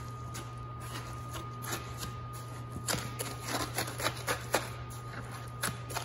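A wooden stick stirring and poking wet concrete in a steel brake-rotor form, making a run of short, irregular scraping clicks that come thickest in the middle and fall off toward the end. A steady low hum runs underneath.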